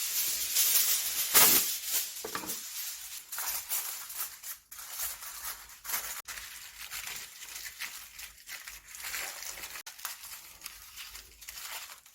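Aluminium foil crinkling and rustling as it is handled, with a louder burst about a second and a half in.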